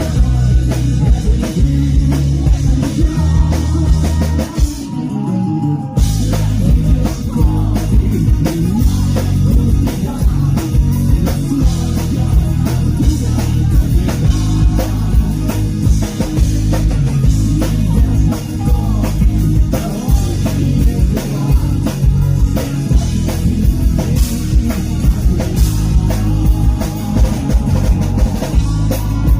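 Live rock band playing an acoustic arrangement with drum kit and guitars. The low end drops out briefly about five seconds in, then the full band comes back in.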